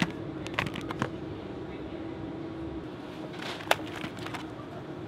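Plastic food packs crackling and clicking as they are handled and picked off a chilled shelf, with the sharpest click about three and a half seconds in. A steady hum from the refrigerated display cases runs underneath.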